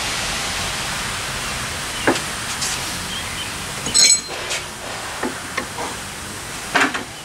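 Metal press cups of a bushing press kit being handled and clinking together, a few light knocks with one ringing metallic clink about four seconds in, over a steady rushing background noise.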